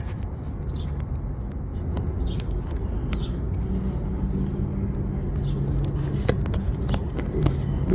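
Steady low rumble of a running vehicle, with a faint engine hum through the middle, a few small clicks and faint high chirps.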